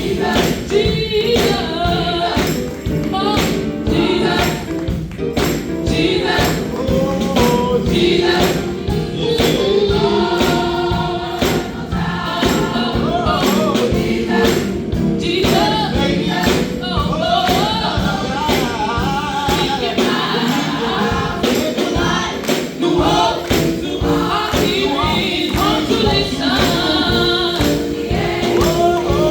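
A choir singing a gospel-style song with accompaniment and a steady percussive beat.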